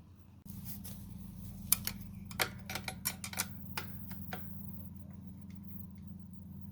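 About ten sharp, irregular metal clicks and clinks of spanners on a bicycle wheel's axle nuts as they are tightened, the loudest near the start, over a steady low hum.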